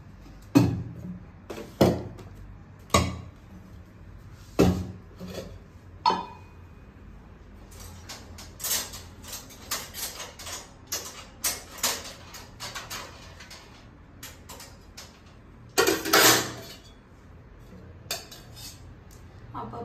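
Metal pots and kitchen utensils being handled at a stove, clattering and clinking. There are a few sharp knocks in the first six seconds, then a run of quick clinks, and a louder, longer clatter about sixteen seconds in.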